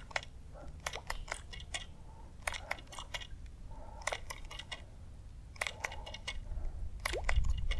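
Bursts of rapid, irregular clicking from a baitcasting reel, cranked in short spurts while a topwater stick bait is twitched back across the surface. There are about six bursts, with short pauses between them.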